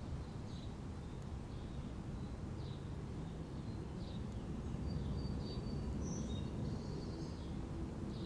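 Outdoor ambience: a steady low rumble with faint, short bird chirps repeating about once a second, and a few brief high whistles midway.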